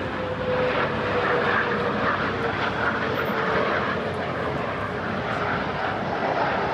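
Four-engine jet airliner passing low overhead with its landing gear down, which aviation fans take for NASA's Douglas DC-8: steady jet-engine noise with a thin whine that drifts slightly down in pitch.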